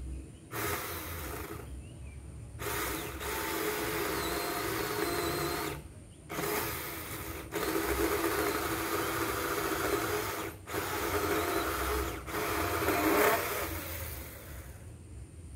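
Bull cordless 4-inch mini chainsaw's electric motor running in about six bursts of one to three seconds with short stops between, as it cuts into a hard, old water apple trunk.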